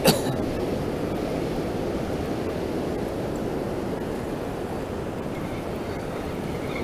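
Ocean surf breaking and washing up the beach, a steady rushing noise, with one short sharp knock just at the start.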